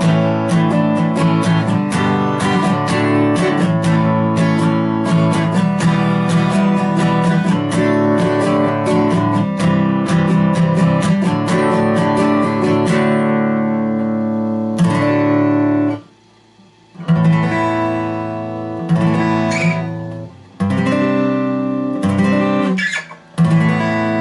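Guitar, freshly tuned to pitch, played in a quick run of picked and strummed notes for about thirteen seconds. A last chord rings and is cut off, then four single strummed chords follow a couple of seconds apart, each left to ring.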